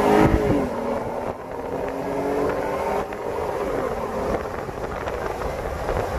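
Jeep Gladiator engine accelerating, heard from inside the cab. The revs climb, drop sharply at an upshift of the automatic transmission about a third of a second in, then climb again.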